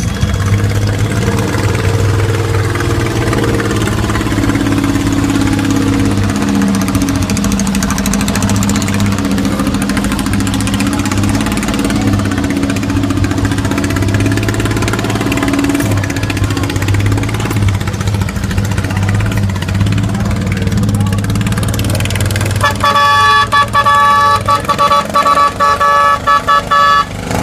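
The small engine of a miniature Mack dump truck runs steadily, with its pitch wavering slightly as it creeps along. Near the end a loud multi-tone horn honks in a run of quick blasts for about four seconds.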